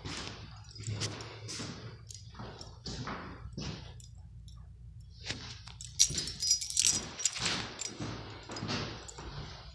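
Footsteps on a hardwood floor, about two a second, with a brief jangle of keys about six seconds in.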